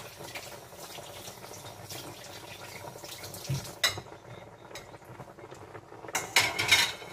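Cream sauce in a pan bubbling steadily as it comes to the boil. A single click about four seconds in, then a few louder clattering scrapes of the utensil against the pan near the end.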